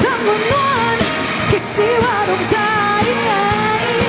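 Female pop singer singing live with a backing band, holding long notes with vibrato over a steady beat.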